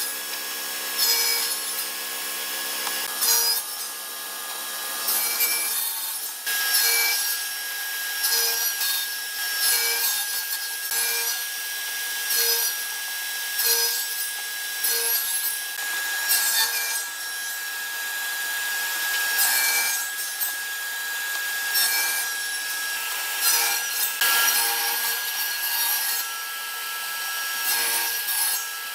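Tool working wood in repeated rasping strokes, about one every second or so, over a steady high hum.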